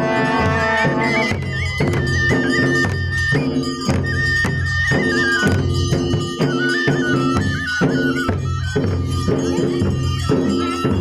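Live folk music: a wind instrument plays a stepping melody over steady held tones, with drums beating about twice a second.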